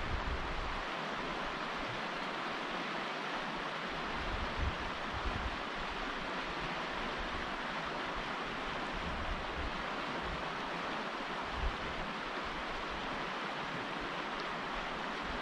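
Wind on the microphone: a steady rushing hiss with irregular low buffets that come and go.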